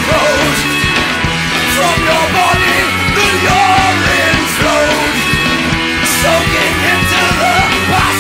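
Punk rock song with a band and a male singer's vocals, loud and driving throughout.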